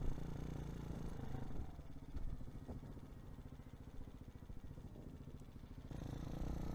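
Hawk 250's single-cylinder engine idling with a fast, even putter, then picking up again near the end as the motorcycle pulls away.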